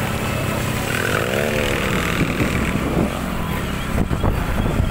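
Motor scooter and motorcycle engines running at speed, a steady low rumble, with a brief rising-then-falling cry about a second in and a few sharp ticks near the end.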